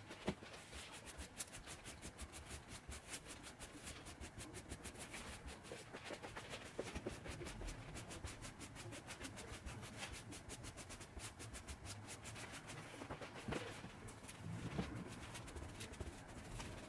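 Hand brush sweeping dirt across a fabric mattress top into a plastic dustpan: quick, repeated bristle strokes, faint, with an occasional sharper knock.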